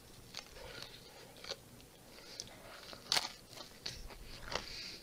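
A person biting into and chewing a whole pizza: scattered short, crunchy mouth sounds, the loudest about three seconds in.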